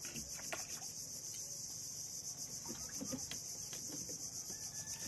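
A steady, high-pitched chorus of insects, crickets by their sound, with a few faint clicks and knocks scattered through it.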